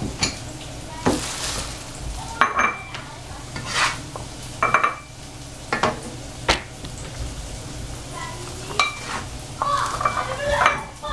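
A cleaver knocking and scraping on a plastic cutting board as cut zucchini pieces are scooped up and dropped into a bowl, in irregular knocks and short scrapes. Frying sizzles in the background.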